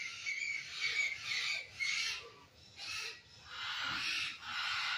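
A flock of parrots squawking and calling, many short high calls overlapping in quick succession: their noisy crying at roosting time.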